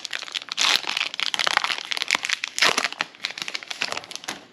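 Foil trading-card booster pack being torn open and crinkled in the hands, a dense run of irregular crackles and rustles that dies away near the end.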